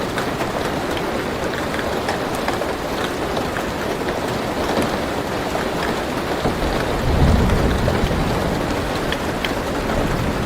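Steady rain drumming on a car roof, heard from inside the car, with individual drops ticking sharply. A low thunder rumble swells about two-thirds of the way through.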